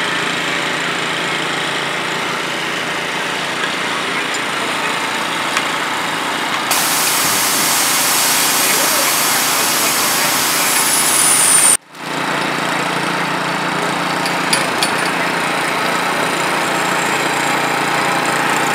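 Small engine of a portable hydraulic rescue-tool power unit running steadily. It drops out for an instant about twelve seconds in.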